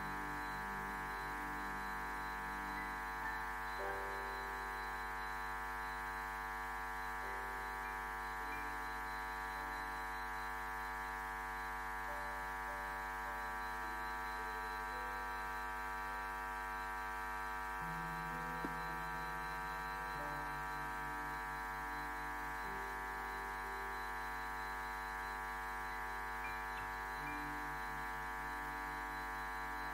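Soft, sustained keyboard pad holding slow chords, its lower notes shifting every few seconds, over a steady low hum.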